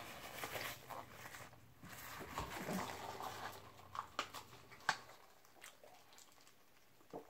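Faint chewing and table-handling sounds as a napkin and a paper drink cup are handled. A few light, sharp clicks come about four and five seconds in, and one more near the end.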